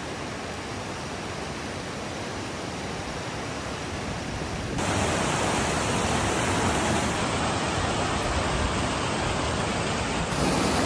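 Fast-flowing mountain stream rushing over rocks, a steady noise that gets louder about five seconds in.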